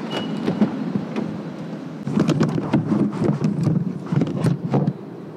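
Handling noise as a camera is stowed inside a car: muffled rustling with many small bumps and clicks against the car door and interior, busiest in the second half. A short high tone sounds right at the start.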